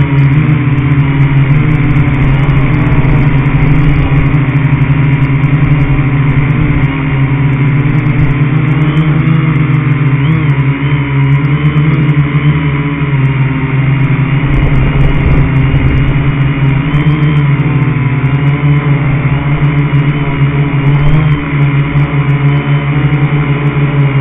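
Radio-controlled car's motor and drivetrain running continuously with a steady hum and whine, picked up close by a camera mounted on the car, with rough rumbling from driving over the grass.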